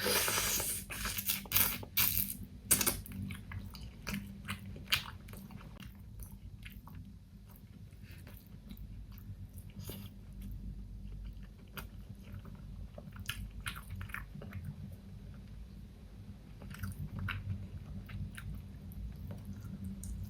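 Close-miked eating: a loud run of crunchy bites in the first three seconds or so, then slower chewing with scattered small crunches and mouth clicks.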